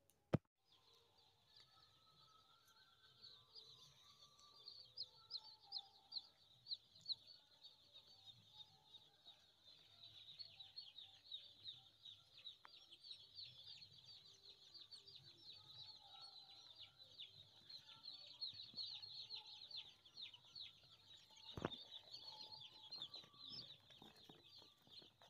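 A large flock of newly arrived broiler chicks peeping continuously: a faint, dense chorus of many short, high, downward-sliding peeps. Near the end there is a single sharp knock.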